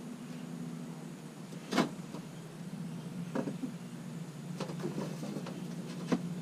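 A plastic air box knocking and scraping against the truck's wheel well liner as it is held and shifted into place, a handful of sharp knocks with the loudest a bit under two seconds in, over a steady low hum.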